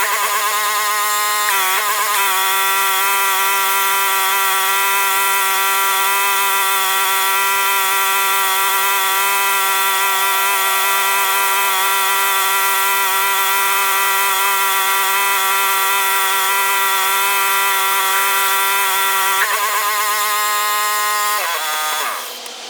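Pressure washer running steadily under load, its engine and pump giving a loud, even whine. It wavers briefly twice and drops away near the end.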